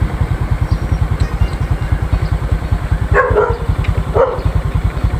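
Honda Wave 125i's single-cylinder four-stroke engine idling with an even, rapid low pulse, while a dog barks twice, about three and about four seconds in.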